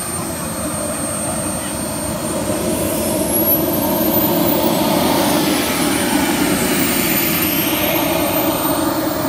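Radio-controlled sport jet's K-100 model turbine running with a steady high whine, growing louder about two and a half seconds in as it spools up and the jet starts to roll.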